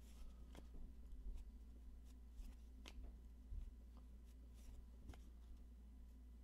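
Near silence: room tone with a low steady hum and faint, scattered small clicks.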